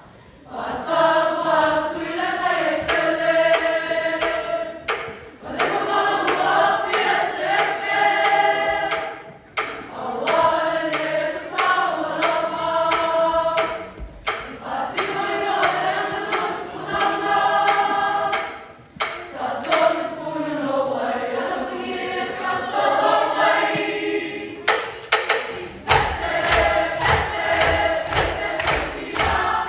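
A mixed choir of school students singing a Samoan song (pese) in harmony, in phrases broken by short pauses. About four seconds before the end a quick, steady beat of thumps joins the singing as the dance (siva) begins.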